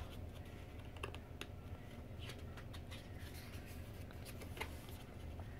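Glossy pages of a photo book being handled and turned: soft paper rubbing with a few faint clicks, over a low steady hum.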